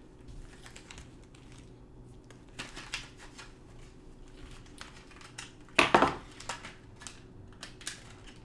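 Handling noises: scattered small clicks and rustling, with a louder crackle about six seconds in.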